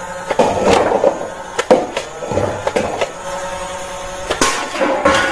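A string of sharp clicks and knocks, roughly a dozen at uneven spacing, over steady-toned background music.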